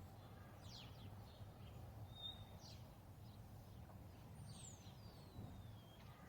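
Near silence with a faint low hum, over which a bird gives a few faint high chirps and, about midway, one long whistle that falls steadily in pitch.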